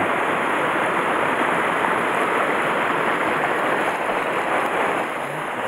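Small mountain stream running fast over rocks, a steady rushing wash of water.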